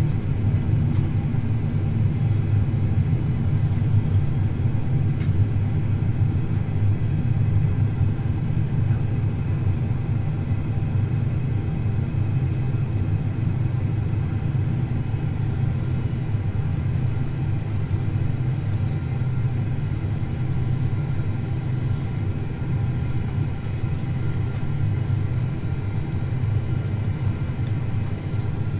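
Steady cabin drone inside a Boeing 767-400ER on final approach: a low rumble of airflow and engines, with a few faint steady whining tones over it, easing slightly in level over the span.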